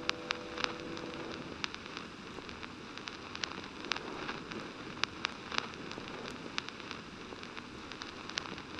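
Soft hiss with scattered sharp crackles and pops, a few each second, as the last held notes of a song die away about a second in.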